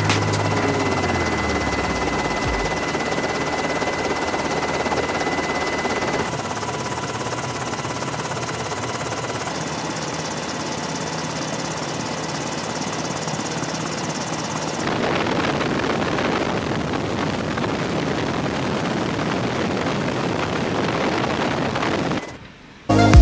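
Steady rushing noise that changes abruptly twice, about six seconds in and again past the middle, with a short dip near the end.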